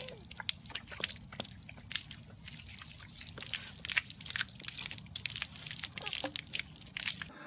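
Water from a garden hose splashing on concrete as a dog snaps and bites at the stream, a rapid irregular run of wet splattering clicks.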